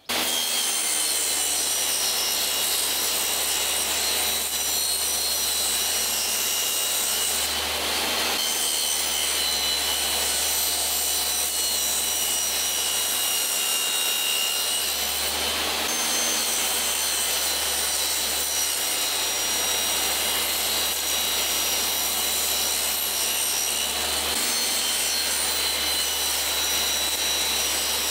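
DeWalt DWE7492 table saw running and cutting a reclaimed pine board fed past the blade with a miter gauge: a steady motor and blade whine over the noise of the cut, shifting briefly a few times.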